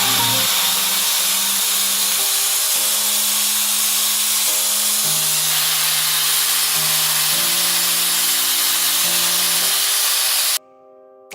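ADEMS Pro sharpening machine grinding a blade on its spinning abrasive disc: a loud, steady grinding hiss that cuts off suddenly near the end. Background music plays underneath.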